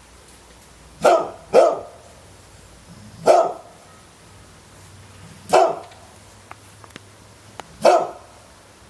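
A dog barking: five single barks, two in quick succession about a second in, then one roughly every two seconds.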